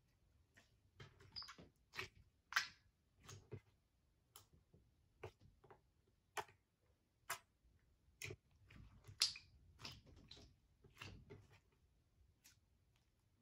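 Stiff, overactivated slime being squeezed and kneaded by hand, giving irregular sticky clicks and pops, with a couple of much louder pops among them.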